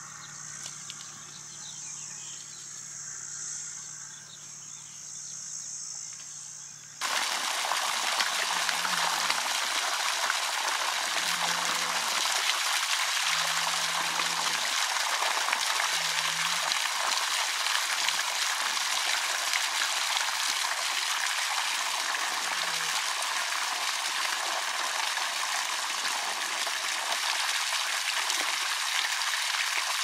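Faint insects trilling for about seven seconds, then an abrupt switch to a loud, steady rush of running, trickling water.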